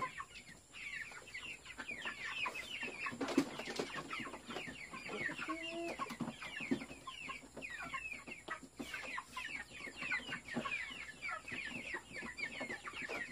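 Flock of young white chickens peeping continuously, many short high falling calls overlapping. A brief louder thump comes about three and a half seconds in.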